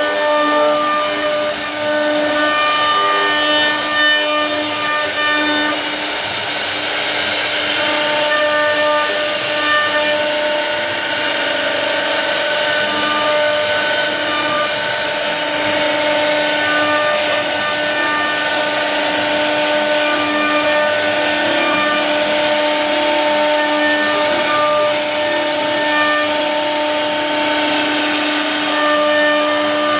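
CNC router spindle whining steadily as its bit carves a relief pattern into a wooden panel, with the rasp of the cutter in the wood rising and falling as the head moves.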